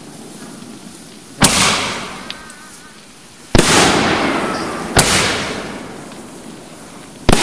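Consumer aerial fireworks bursting overhead: four sharp loud bangs about one and a half to two seconds apart, each trailing off over a second or so.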